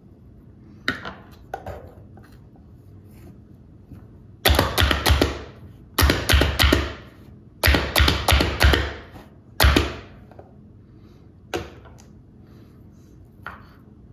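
Hand-pressed plunger food chopper pumped down onto chopped ham on a wooden cutting board: about a dozen loud, sharp strikes in quick runs of three or four, starting a few seconds in. A few lighter knocks come before them.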